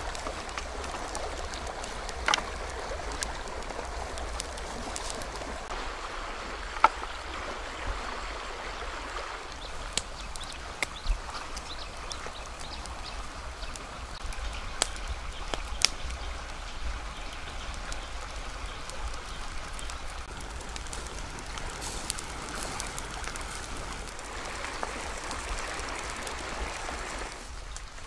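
Steady rush of a shallow stream flowing over rocks, with scattered sharp pops and crackles from a wood campfire, the loudest about seven seconds in.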